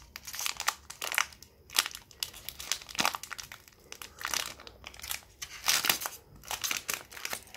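Foil Pokémon booster pack wrapper being crinkled and torn open by hand, in a run of irregular crackles.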